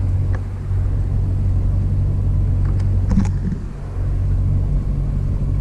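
Boat motor running at idle speed: a steady low drone that dips briefly about three and a half seconds in.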